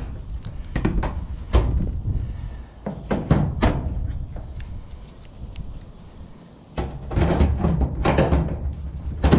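Aviation tin snips cutting through a steel roof panel: a series of irregular crunching snips and metallic clunks, easing off around the middle, then a quicker run of cuts near the end.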